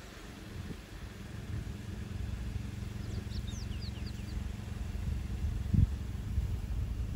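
Idling car engine giving a steady low hum. A few faint high bird chirps come about three to four seconds in, and a single low thump about six seconds in.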